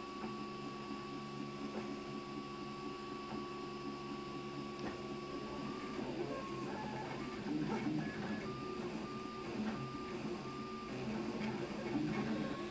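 Prusa i3-style 3D printer at work: its stepper motors whine in short steady tones that jump to a new pitch with each move, over a steady motor and fan hum. The movement gets busier and the tones change more often about halfway through.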